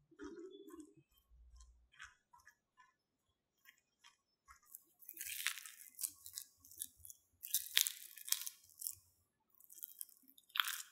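A silicone spatula stirring and mashing cooked potato with cornflour in a ceramic bowl: small taps and soft squishes at first, then louder scraping strokes from about halfway through.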